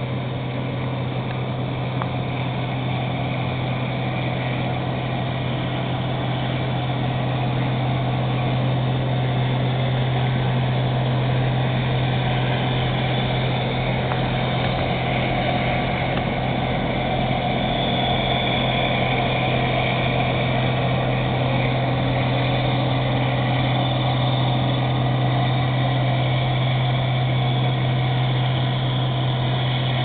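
International Harvester combine harvester working through standing wheat: a steady engine drone with threshing machinery noise over it. It grows a little louder over the first several seconds as the machine comes close, then holds.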